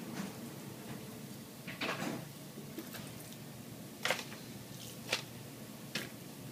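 Knife and raw salmon fillets handled on a paper-towel-covered cutting board: a longer rustle of paper about two seconds in, and short sharp knocks about four, five and six seconds in as the knife taps the board and fillets are set down.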